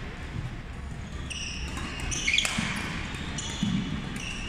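Badminton rally on a hardwood sports-hall floor: court shoes squeak in short high chirps as the players move, with a sharp racket-on-shuttlecock hit about two and a half seconds in.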